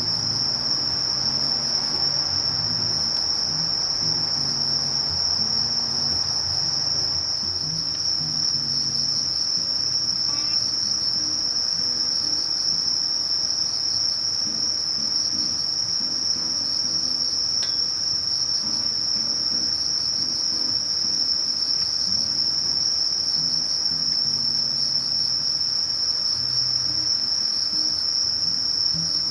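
Sasakiri katydid (Conocephalus melaenus) singing: a high, steady trill that runs without a break.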